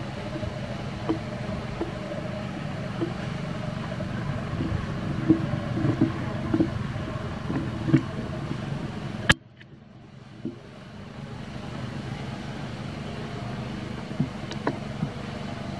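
Steady low engine rumble of nearby motor traffic. A sharp click comes a little past the middle, after which the rumble drops away and slowly builds again.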